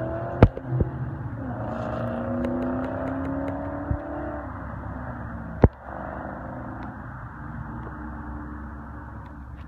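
Modified Ford Mustang pulling away and accelerating. The engine note drops about one and a half seconds in, climbs steadily for about three seconds, then eases to a lower, steadier hum. A few sharp clicks sound over it, the loudest about half a second in and just before six seconds.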